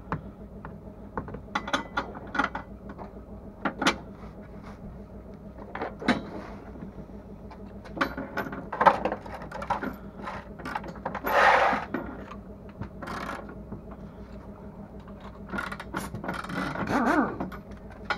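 Hand tools on car bolts: a ratchet spanner clicking, with scattered metallic clicks and knocks. There are two louder rasping runs about a second long, one near the middle and one near the end.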